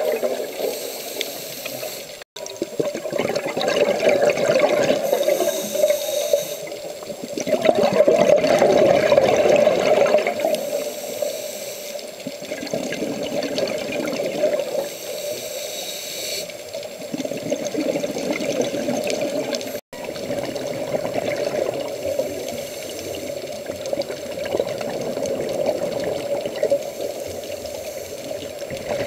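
Scuba divers breathing through their regulators underwater: bubbly, gurgling surges of exhaled air that rise and fall every few seconds, muffled through an underwater camera housing. The sound drops out briefly twice.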